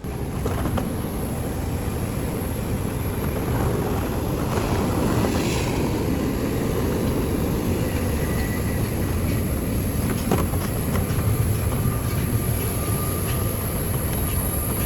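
Steady rumble of a vehicle in motion, with a thin high whine throughout.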